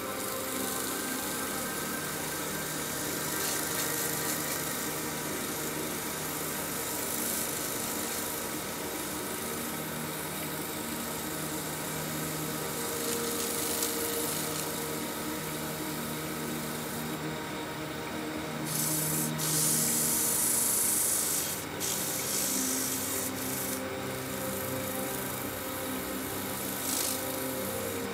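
A cloth pressed against a cherry bowl spinning on a wood lathe, rubbing Yorkshire Grit abrasive polish into the surface: a steady hissing rub over the lathe's running hum. The rub grows louder for a few seconds about two-thirds of the way through.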